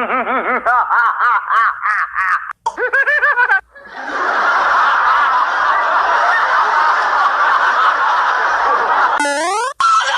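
A run of meme sound-effect clips: a high-pitched, repeated snickering laugh for about three and a half seconds, then a steady noisy rush for about five seconds, and near the end a quick rising sweep.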